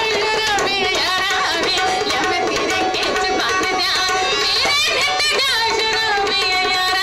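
Live Punjabi folk duet music: a woman singing a wavering, held melody at the microphone over drum and instrumental accompaniment.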